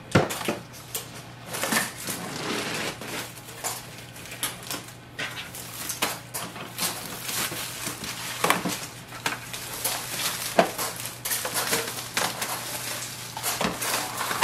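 Thin plastic packaging crinkling and crackling as it is pulled off a printer, in irregular bursts with a few sharper clicks.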